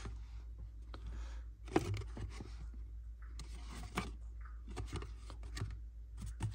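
Rustling and a few light clicks and knocks as a set of boxed Zippo lighters is handled, over a steady low hum.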